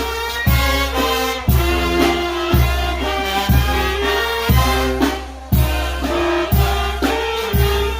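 Mexican banda (brass band) playing, with saxophones and trumpets holding the melody over deep bass notes that land on the beat about once a second.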